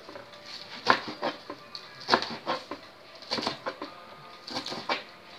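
Kitchen knife chopping mustard greens on a plastic cutting board: sharp knocks of the blade hitting the board, in quick pairs and triples about once a second.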